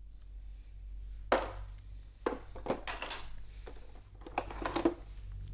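Plastic clicks and clatter of a hot glue gun being handled and taken out of its plastic case, about half a dozen sharp knocks, over a steady low hum.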